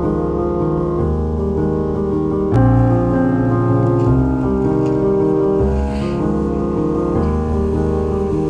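Background music led by piano: slow held chords that change every second or two, with a stronger chord struck about two and a half seconds in.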